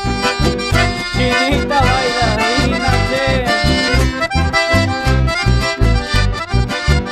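Live accordion-led band music with a steady bass beat, and a sliding melody line weaving through the middle.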